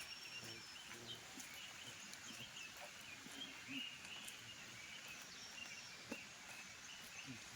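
Birds chirping faintly with short, repeated high calls over a steady outdoor hiss.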